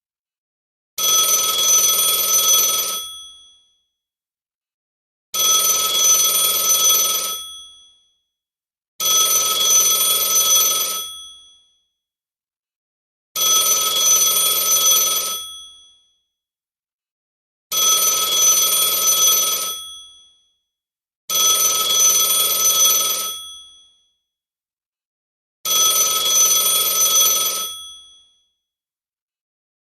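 Telephone ringing: seven rings, each about two seconds long and fading out, separated by pauses of roughly one to two seconds.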